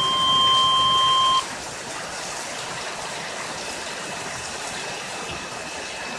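Midland HH54VP weather radio sounding the NOAA Weather Radio warning alert tone, a steady high beep that cuts off about a second and a half in; here it heralds a flash flood warning. A steady low hiss follows.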